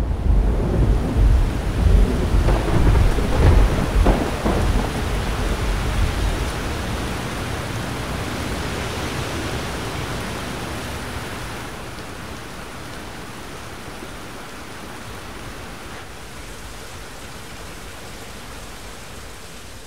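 Thunderstorm: thunder rumbles in surges over heavy rain for the first several seconds, then dies away. Steady rain hiss is left, growing quieter and settling low.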